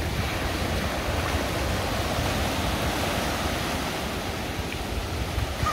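Small waves breaking and washing up in shallow surf, a steady rushing noise, with a low rumble of wind on the microphone.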